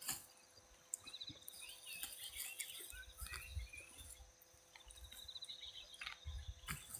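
Faint rural field ambience: birds chirping and insects calling. A few soft clicks and low rumbles come from close by as weeds are hoed and pulled from the soil.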